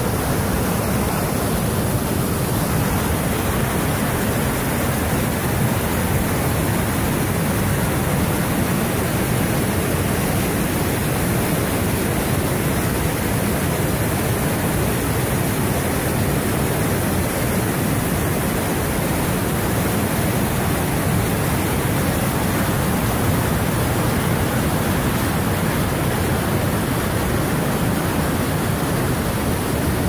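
Swat River white water rushing over and between large boulders in rapids: a loud, steady, unbroken rush of water.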